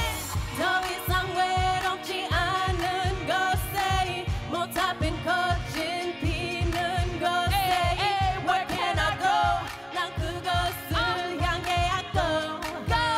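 A woman singing into a handheld microphone over the backing track of an R&B pop song, with a steady bass beat.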